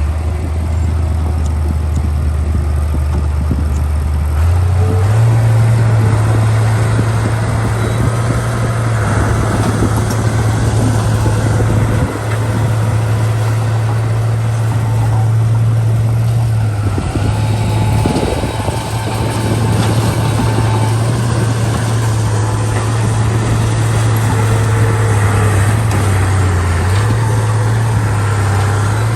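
Heavy diesel engine of a dump truck or bulldozer running with a steady low drone, picking up speed about four seconds in and easing off briefly near the end.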